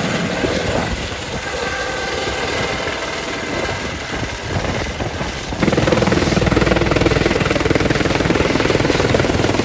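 Helicopter rotor noise from Airbus H130 (EC130) helicopters: a fast, steady chop of the blades over engine noise as one lifts off and climbs. About five and a half seconds in the sound jumps abruptly louder and deeper, as a second helicopter passes close in flight.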